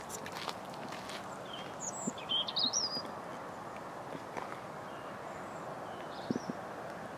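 Steady outdoor background noise, with a bird chirping a few quick wavering notes about two seconds in and a couple of soft knocks near the end.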